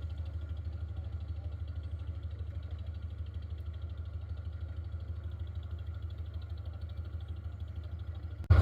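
Narrowboat's diesel engine running steadily with an even low pulsing beat. About 8.5 seconds in, it suddenly gets much louder.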